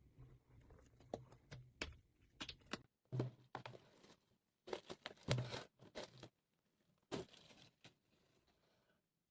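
Vinyl record packaging being handled: crinkling and rustling with sharp clicks and taps, in irregular bursts that die away for the last second or so.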